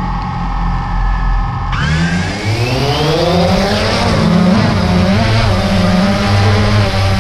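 DJI Phantom 2 quadcopter's motors and propellers, heard close from the camera on board. They spin with a steady whine, then about two seconds in they rise sharply in pitch as the throttle is opened and the drone lifts off. They settle into a loud, steady hover whine.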